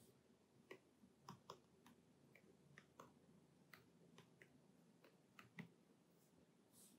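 Faint, irregular taps of fingertips typing on an iPad's touchscreen keyboard, about a dozen light clicks.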